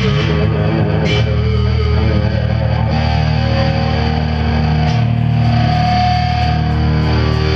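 Live band playing loud distorted electric guitar and bass, holding long ringing chords that change a couple of times, with an occasional cymbal hit.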